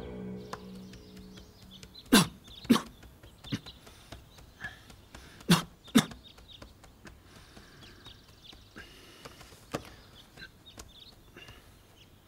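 Quiet room ambience with faint birds chirping, broken by a handful of sharp clacks: two pairs close together about two seconds in and again about five and a half seconds in, then a single one near ten seconds.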